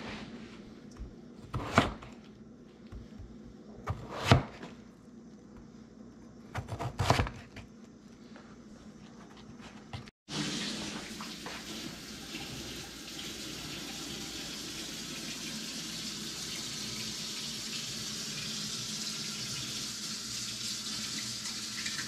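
A chef's knife chopping potatoes on a cutting board, three sharp chops a couple of seconds apart. Then, about ten seconds in, water starts running steadily from a tap.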